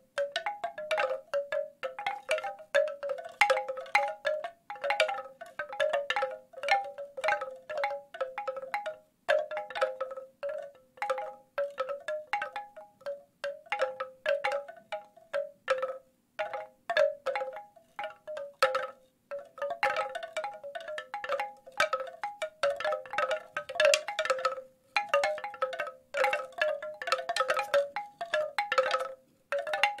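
Bamboo wind chimes stirred by the wind: the clappers knock the hollow tubes in quick, irregular clusters, with a few brief pauses. Each knock rings briefly on a few hollow, woody pitches.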